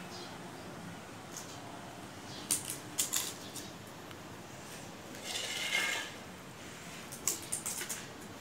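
Small plastic clothespin clattering on a concrete floor as a kitten bats it about: a quick run of clicks, a scrape lasting about a second just past halfway, then another run of clicks near the end.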